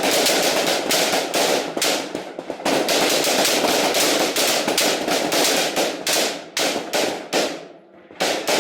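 Many rifles on a firing line shooting a rapid course of fire: a dense string of overlapping shots with a short break about two and a half seconds in, thinning to scattered single shots after about six seconds, with one last shot near the end.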